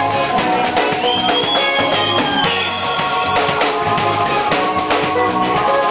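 Live band playing, the drum kit keeping a steady beat under electric guitar. About a second in, a high note is held for over a second, bending slightly before it stops.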